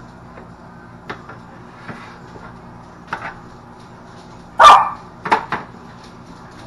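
A dog barking a few times, the loudest bark about two-thirds of the way in, over a steady low hum, with a few light clicks before it.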